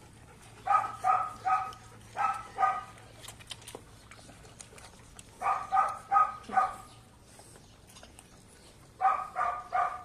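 A dog barking in quick runs of two to four short barks, four runs with pauses between them.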